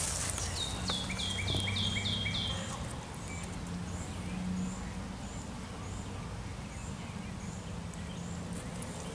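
A songbird singing a quick run of about six falling notes, then faint high chirps repeating about every half second.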